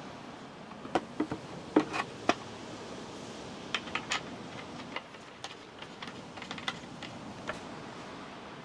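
Wooden parts of a folding table knocking and clicking together as its crossed legs and crossbar are fitted: a scatter of sharp taps, busiest between about one and two and a half seconds in, then lighter ones, over a faint steady hiss.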